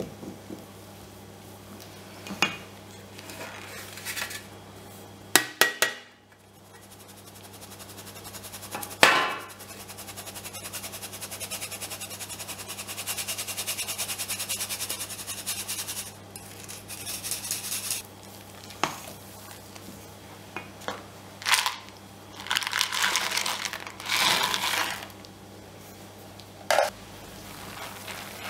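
Clinks and knocks of a whisk and utensils against a stainless-steel mixing bowl, with a stretch of fast, even rattling about ten seconds in as flour is shaken through a metal sieve, and bursts of scraping as the batter is stirred near the end.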